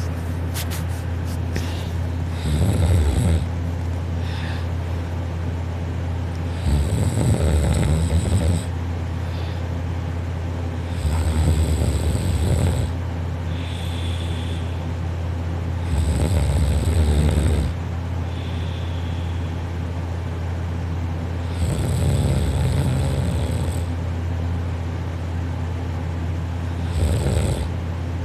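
A person snoring softly in sleep: six snores, one about every five seconds, each lasting one to two seconds. A steady low hum runs underneath.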